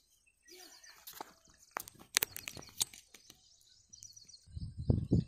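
A spinning reel is cranked with rapid ticking and sharp clicks as a hooked fish is reeled in against the bent rod. About four and a half seconds in a loud low rumble takes over.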